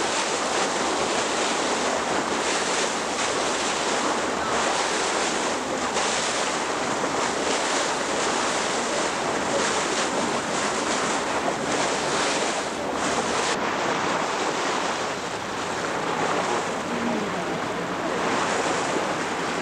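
Wind buffeting the microphone over the steady rush of sea water along a moving boat.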